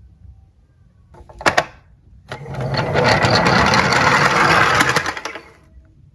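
Die-cast toy cars rolling down a slope: a few sharp clicks as they are set going, then a loud, rapid rattle for about three seconds that dies away near the end.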